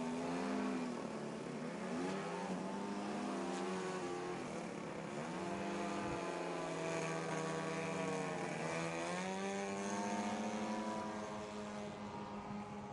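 50cc gasoline two-stroke engine of a Yak 54 RC aerobatic plane running in flight. Its pitch rises and falls several times as the throttle and the plane's passes change, and it fades slightly near the end as the plane climbs away.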